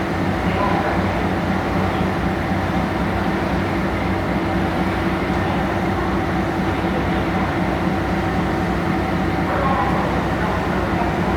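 Car ferry's diesel engines running steadily as the ship leaves port: an even, low drone with a constant hum.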